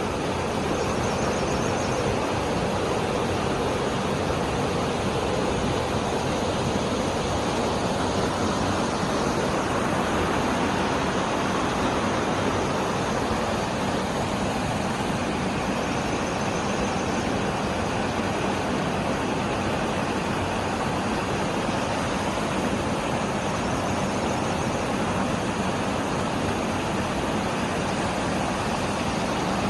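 Waterfall pouring into a valley stream's pool: a loud, steady rush of falling water.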